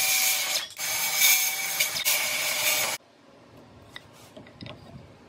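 A small machine or power tool running loudly for about three seconds, broken by two brief pauses, then cutting off suddenly; a few light clicks and taps of handling follow.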